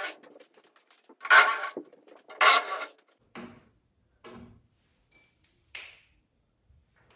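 Cordless drill running in short bursts, backing screws out of a machine's feet and out of a wooden pallet. Two bursts come about a second apart early on. Softer knocks and shuffles of handling follow.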